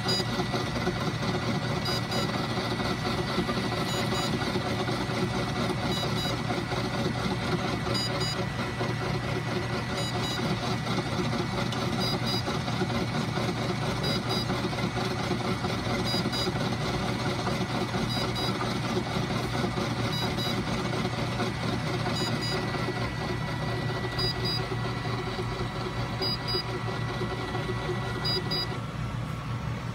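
Flatbed printer and its bulk ink system running with a steady machine hum and a constant high whine, which stops shortly before the end. Over it, short high electronic beeps repeat about every two seconds, a sound alert of the kind the bulk ink system gives when a tank's low-ink sensor trips.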